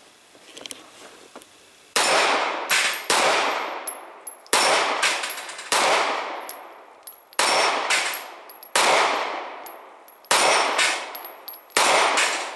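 Eight shots from a Smith & Wesson 3913NL 9mm pistol firing ball ammunition, spaced about a second and a half apart, each ringing out and fading. Several shots are followed by the clang of a struck steel plate.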